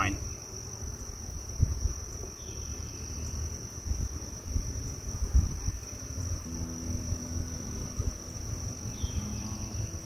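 Steady high-pitched trill of insects in the summer grass, over a low rumble and soft knocks as the hive frames are handled. About six and a half seconds in, a buzzing hum passes close for a couple of seconds, likely a flying honeybee from the open hive.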